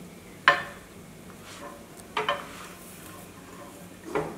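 Spatula and ceramic plate clinking against a dosa tawa as a rolled dosa is lifted onto the plate: a sharp clink about half a second in, a quick double clink around two seconds, and another near the end.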